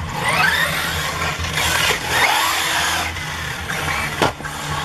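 1/8-scale off-road RC buggies racing past on a dirt track, their motors rising and falling in pitch as they speed up and slow for the turns. A single sharp knock about four seconds in.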